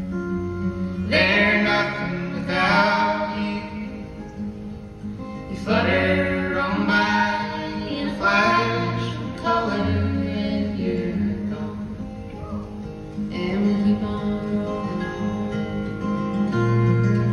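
Live folk band playing: acoustic guitar and upright bass under sung vocals that come in phrases, with short instrumental gaps between them.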